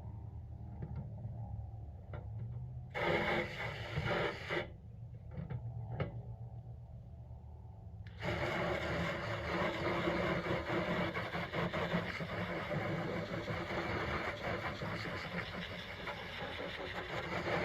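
Water spraying from a hose onto a metal toolbox: a short spray about three seconds in, then a steady spray from about eight seconds in. A steady low engine hum runs underneath.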